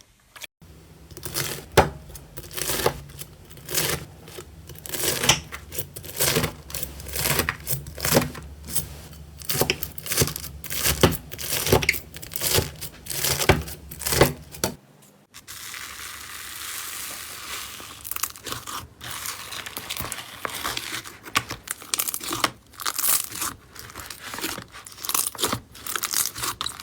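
Slime being pressed and worked by hand, giving a fast, irregular run of crackling snaps and pops. About halfway through the sound changes to a steadier crinkling hiss with fewer snaps.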